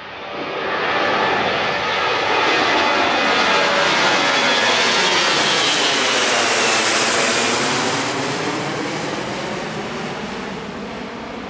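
Airbus A340-300's four CFM56 turbofan engines at takeoff power as the jet climbs out directly overhead. The roar swells within the first second and stays loud, with a high whine that falls in pitch as the plane passes overhead about six seconds in, then slowly fades as it climbs away.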